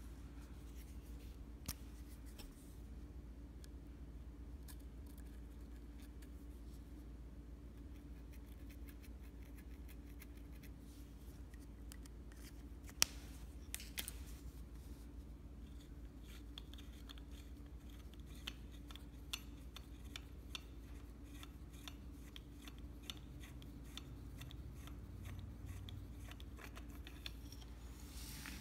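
Scattered light clicks and taps of hand work on a fishing-rod section being fitted as a landing-net handle, with one sharper click about 13 seconds in and closer-spaced clicking in the last third, over a steady low hum.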